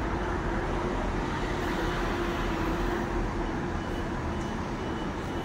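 Steady road traffic noise from cars and vans passing along a busy city street.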